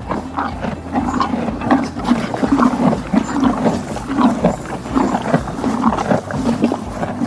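Horse making a continuous run of low, rough, rumbling pulses, about two or three a second.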